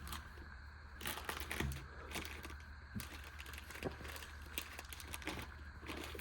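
Rustling with scattered light clicks and taps as small items are handled, about one click or rustle each second.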